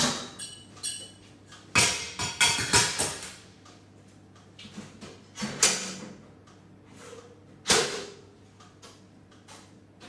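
Scattered knocks, clicks and clanks of someone handling equipment in a milk house, over a faint steady low hum. The sharpest knock comes about three quarters of the way through.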